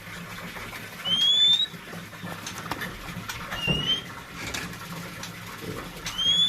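Kacer wulung (black Javan magpie-robin) giving single rising whistled notes, three times at intervals of about two and a half seconds, with light clicks and taps between them.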